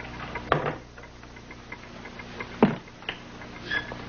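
Rummaging noises: a few sharp knocks and clunks as a wooden cabinet is searched by hand, the loudest a little past halfway. A faint regular ticking runs underneath.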